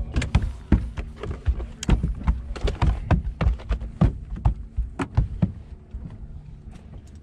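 Rapid, irregular thumps and knocks on the boat, several a second, easing off after about five seconds.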